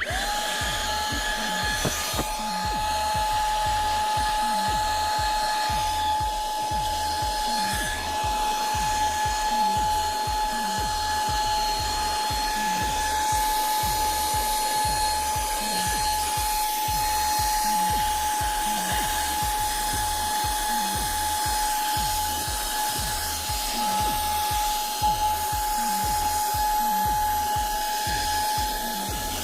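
Small handheld car vacuum cleaner's motor switched on at the start and then running with a steady whine.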